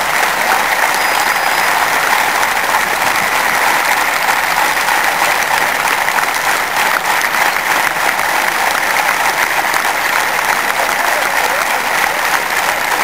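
A large stadium crowd of football supporters applauding, a dense, steady clapping that keeps up without a break.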